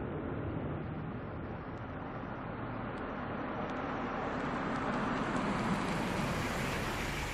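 A 1990s Chevrolet Suburban driving slowly over packed snow, its engine and tyre noise growing louder as it comes closer, loudest about five to six seconds in.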